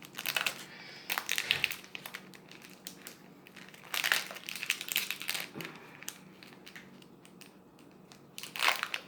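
Foil Pokémon booster pack wrapper crinkling and rustling as it is opened and handled, in several short irregular bursts.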